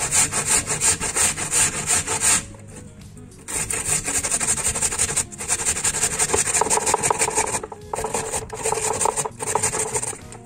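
White radish being grated on a stainless steel box grater: quick, repeated rasping strokes, with a pause of about a second a little over two seconds in and a few brief breaks later.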